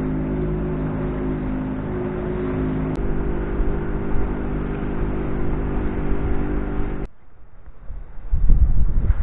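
Outboard motor running steadily at cruising speed as a small open boat runs across the water, with water and hull noise beneath it. It cuts off abruptly about seven seconds in, and gusty wind buffets the microphone near the end.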